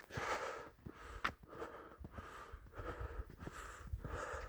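A hiker breathing hard in a rhythm of short, rustly breaths, with a low wind rumble on the microphone.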